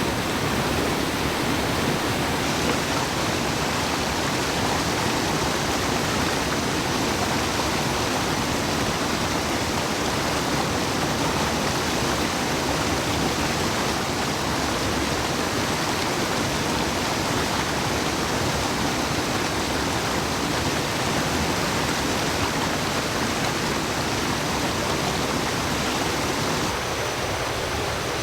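Waterfall and stream water rushing steadily, an even, continuous noise.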